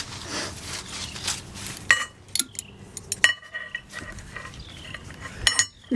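Metal tools and parts clinking and clattering as they are handled, with a few sharp ringing clinks about two, three and five and a half seconds in.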